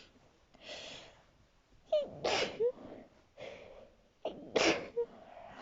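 A woman sneezing twice, about two seconds apart, as part of a fit of repeated sneezes.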